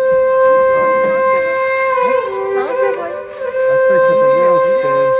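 A wind instrument holds a long, steady note, drops to a lower note for about a second midway, then returns to the first note and holds it again until near the end. Fainter wavering sounds run behind it.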